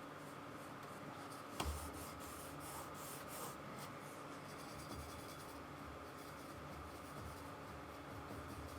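Faint, scratchy strokes of a paintbrush working acrylic paint on the painting surface, with one sharp knock about a second and a half in.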